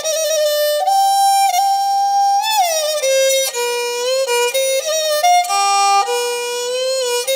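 Music: a single bowed string instrument plays a slow melody of long held notes that slide down between pitches, moving into a run of quicker, shorter notes in the second half.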